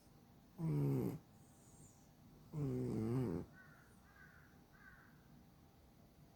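A sleeping cat snoring: two snores, each under a second long, about two seconds apart, followed by three faint short high chirps.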